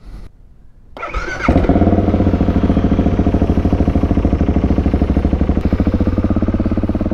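BMW G650GS single-cylinder engine starting: a brief rising starter whine about a second in, then the engine catches and runs at a steady idle with a fast, even pulse.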